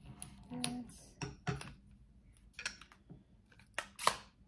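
Plastic clicks and knocks of a selfie stick being handled and adjusted, an irregular string of sharp clicks with the loudest one near the end.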